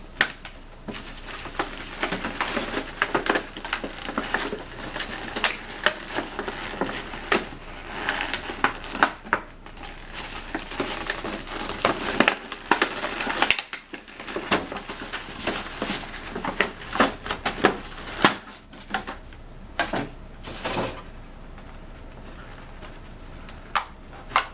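Packaging being handled as a camcorder is unpacked from its box: irregular rustling with many sharp clicks and knocks, dying down over the last few seconds.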